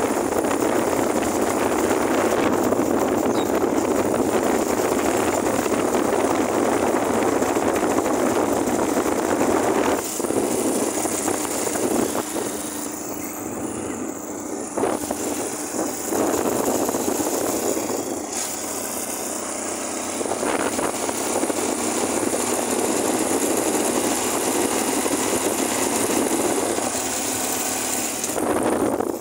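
Motorcycle running on the move, its engine mixed with wind rushing over the microphone, steady apart from a few short dips in level around the middle.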